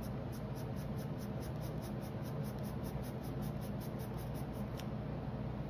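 Pencil scratching on paper in quick, even back-and-forth shading strokes.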